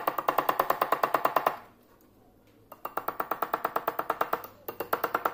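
Rapid light hammer taps on a steel setting punch, about ten a second, each with a short metallic ring, as the bezel of a silver ring is pushed down over its stone. The tapping comes in three runs: the first stops about one and a half seconds in, the second starts near the three-second mark, and a short third run comes near the end.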